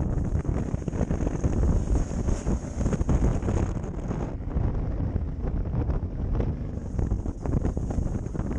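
Wind buffeting the microphone of a camera on a moving motorcycle, over a low rumble of the bike and the road. The higher part of the rush eases for a couple of seconds midway.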